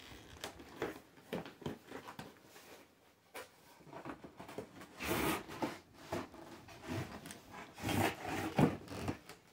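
Cardboard packaging rubbing and scraping as an inner box is slid out of its outer cardboard sleeve, with scattered light knocks; louder scrapes come about halfway through and again near the end.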